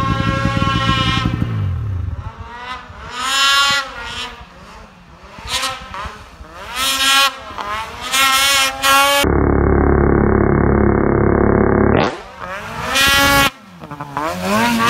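Mountain snowmobile's two-stroke engine revving in repeated bursts, its pitch climbing and dropping with the throttle. For a few seconds past the middle the sound turns muffled to a steady low drone, then loud revving returns.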